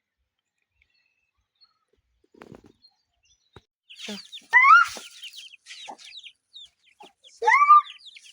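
Chickens calling, starting about four seconds in: two loud rising calls, the second near the end, among many small high peeps from chicks.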